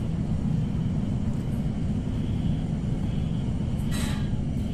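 A steady low rumble throughout, with a brief scuffing noise about four seconds in.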